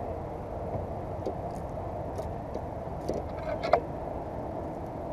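A steady low background rumble, with a few faint short clicks and rustles as a landed largemouth bass and weed are handled by hand.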